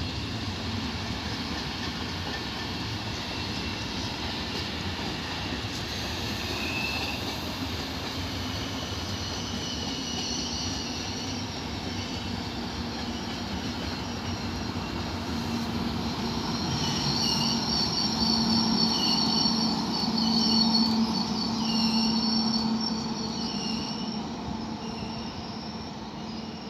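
Intercity train of passenger coaches with an electric locomotive rolling past over the rails, a steady rumble of wheels on track. Past the middle it gets louder, with a low hum and high wheel squeal that wavers about once a second.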